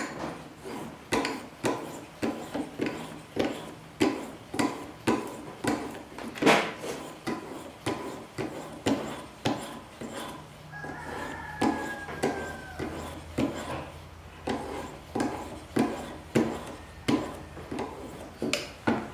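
Whetstone on a guided-rod knife sharpener drawn back and forth along a knife edge, a steady run of short rubbing strokes, about two a second.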